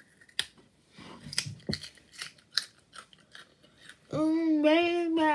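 Crisp, irregular crunching of raw carrot being bitten and chewed. About four seconds in, a girl's voice starts a loud, held sung note that wavers slightly.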